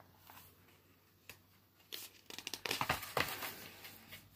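Paper pages of a booklet being leafed through: a few faint handling clicks at first, then a quick run of rustling page turns from about halfway in.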